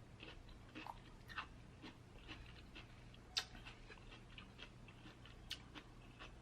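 Faint close-up chewing of crunchy raw vegetable, likely mini bell pepper: scattered soft crunches and wet mouth clicks, with one sharper click about halfway through.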